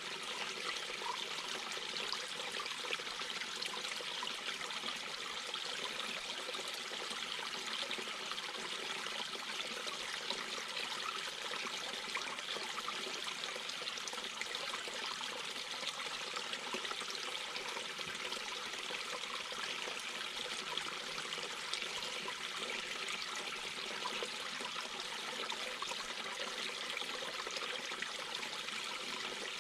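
Mountain brook babbling over rocks: a steady trickling, splashing flow of water.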